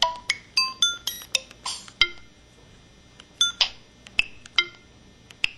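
Samsung SCH-E300 mobile phone playing a run of short electronic effect sounds: brief beeps, chimes and clicks one after another, packed closely in the first two seconds and more spread out after.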